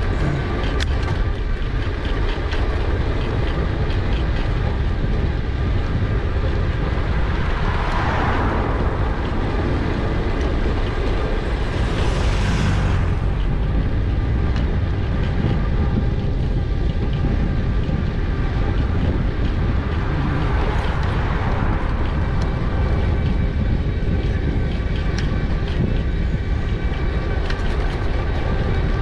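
Wind buffeting the GoPro Hero 8's microphone and tyre rumble from an e-bike on the move, with scattered rattling clicks and a faint steady whine. Two brief swells of rushing noise come about eight and twelve seconds in.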